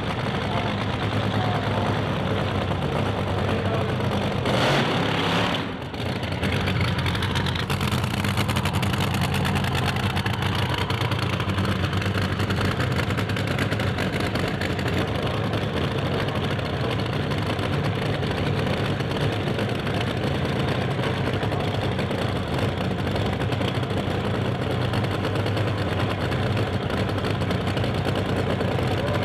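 Supercharged drag-racing engine of a rear-engine dragster idling steadily, with a brief louder rush about five seconds in.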